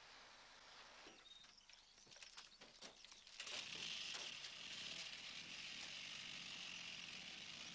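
A JAWA motorcycle engine, heard as a steady even noise on an old film soundtrack. It starts about three and a half seconds in, after a few faint clicks, as the police rider gets the bike going.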